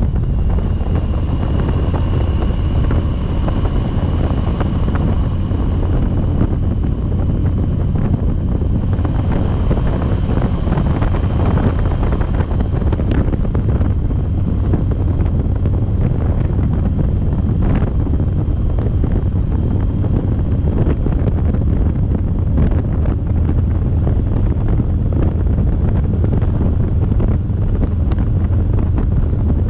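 Steady, heavy wind noise on the microphone of a motorcycle being ridden, with engine and road noise running underneath.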